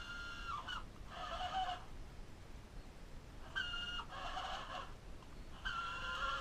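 Chickens calling: four or five drawn-out calls, each about half a second to a second and a half long, mostly held at one pitch with some dropping at the end.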